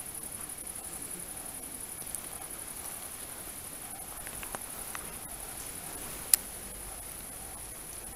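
Crickets trilling steadily, a continuous high, finely pulsing chirr, with a single sharp click about six seconds in.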